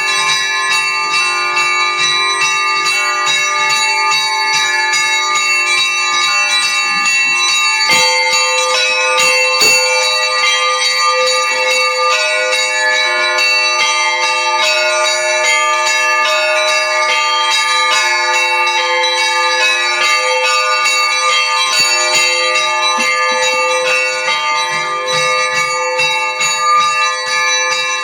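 Russian Orthodox church bells ringing in a continuous peal (zvon), many bells of different pitches struck over one another without a break. The lower bells shift about eight seconds in.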